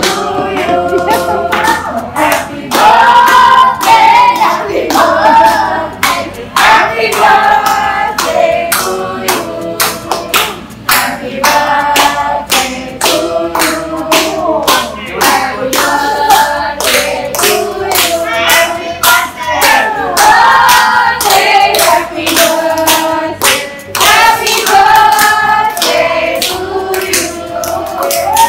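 Group of voices singing a birthday song together with steady rhythmic hand clapping, over a backing track with a low bass line.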